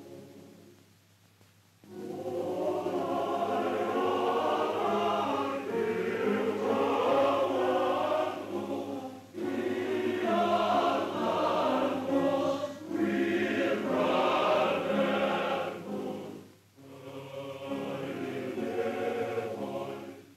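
A choir singing in long phrases with short breaks between them, starting about two seconds in.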